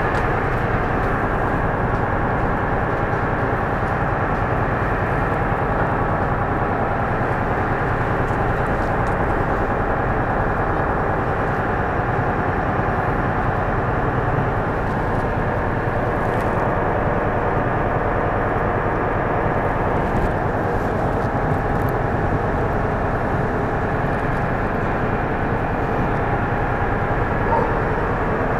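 A moored ferry's engines running steadily: a constant, even drone with a low hum.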